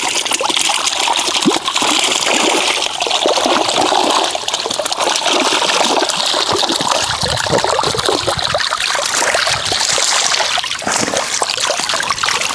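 Water pouring and splashing through the mesh of a fishing keepnet as it is hauled out of a lake, with a catch of roach thrashing inside it.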